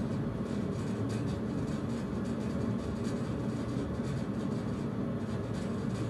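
Steady low rumbling noise with no distinct events.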